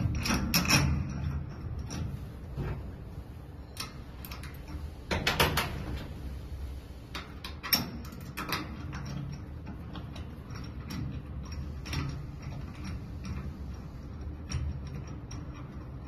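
Irregular small metallic clicks and knocks of a hex key turning the screws of a steel clamp fixture, with a plastic steam iron being seated against the clamp. Louder knocks come about half a second in, about five seconds in and near eight seconds.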